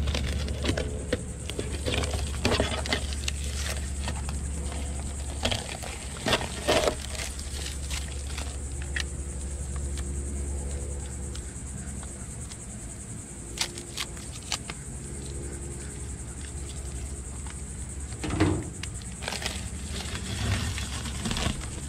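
Clear packing tape being peeled off a truck's side-mirror housing and the handheld mirror taped into it: irregular crackles, rips and clicks of tape and plastic.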